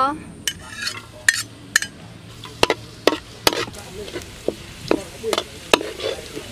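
Metal ladle scraping and knocking against a steel wok as minced garlic is stirred in hot oil, the garlic sizzling. The knocks are sharp and uneven, about two a second.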